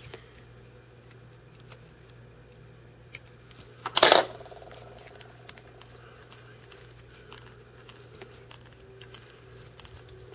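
Small metallic clicks and clinks of fly-tying tools being handled at a brass vise, with one louder metal clatter about four seconds in that rings briefly after.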